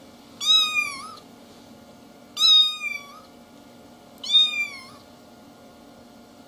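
A kitten meowing three times, about two seconds apart: short, high-pitched meows that fall slightly in pitch at the end.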